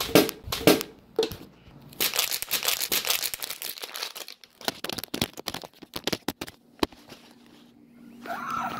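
Rustling, crackling handling noise on a phone's microphone as the phone is swung and gripped, a dense run of irregular crackles and clicks that thins out later on.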